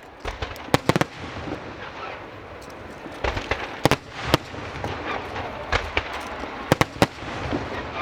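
Aerial fireworks going off: irregular sharp bangs of shells bursting, some in quick pairs, over a steady crackle.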